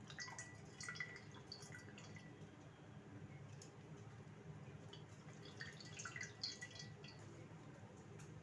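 Faint drips and small splashes of water as bread slices are wetted by hand, coming in two clusters: in the first couple of seconds and again around six seconds in. A low steady hum runs underneath.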